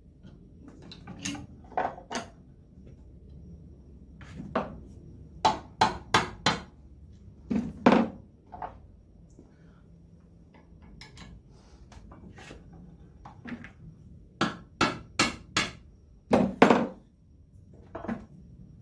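Sharp hammer blows on metal, about fifteen in short bursts of two to four with a quieter stretch of several seconds in the middle, knocking loose the side cover on the cast-iron crankcase of a McCormick-Deering Type M hit-and-miss engine.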